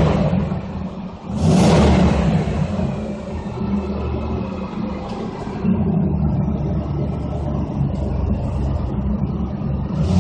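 1994 Cadillac DeVille's 4.9-litre V8 running through its stock exhaust, whose muffler is cracked on top. It is revved once about a second and a half in and the revs fall away, then it is held slightly higher from about six seconds in, all with a low rumble, inside a concrete parking garage.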